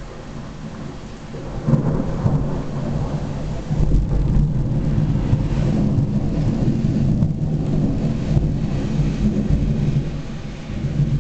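Thunder rumbling low and long, swelling about two seconds in and rolling on.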